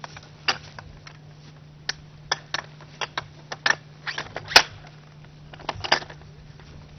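Irregular clicks and clanks of rescue-tripod parts (legs, feet and locking pins) being handled and fitted together, the loudest about halfway through, over a steady low hum.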